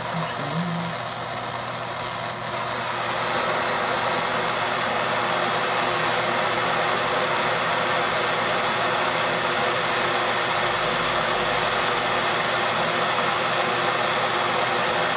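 Butane torch flame hissing steadily as it heats the nail of a dab rig. It swells over the first few seconds, then holds even.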